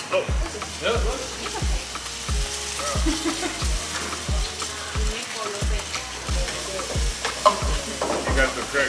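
Eggs and oil sizzling in hot frying pans on gas burners as eggs are cracked in. Under it runs a steady low thumping beat from background music, roughly one beat every two-thirds of a second.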